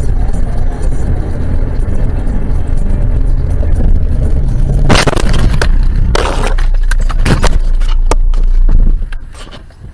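Heavy rumble of a car's road and engine noise picked up by a dash cam, then a collision about five seconds in: a sharp crash followed by several more knocks and rattles.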